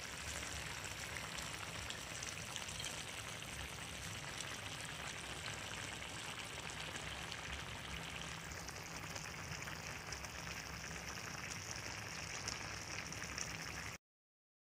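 Apple snail curry in a wok sizzling steadily as it cooks down, its sauce reduced nearly dry. The sound cuts off suddenly near the end.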